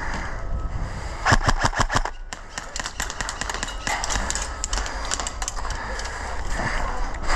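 Airsoft guns firing: a rapid burst of clicking shots lasting about a second starts a little over a second in, followed by scattered single shots.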